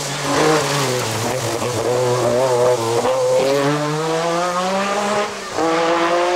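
Group B rally car engine revving hard, its pitch climbing steadily under acceleration. About five and a half seconds in there is a brief lift, and then it pulls again.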